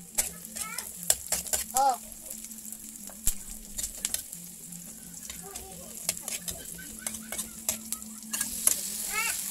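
Chopped onion and garlic sizzling in oil in a metal wok while a metal spatula stirs them, clicking and scraping against the pan many times.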